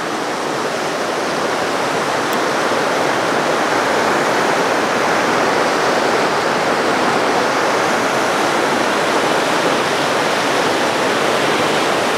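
River rapids rushing over rocks: a steady, loud rush of whitewater that swells a little over the first two seconds, then holds.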